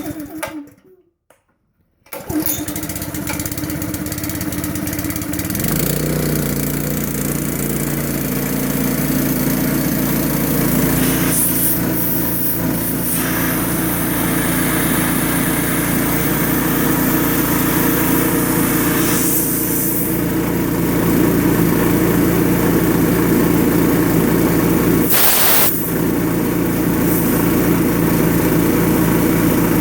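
A 5.5 hp Honda single-cylinder engine driving a belt-driven air compressor pump is started with the choke on. It catches about two seconds in and then runs steadily, with its note changing about six seconds in.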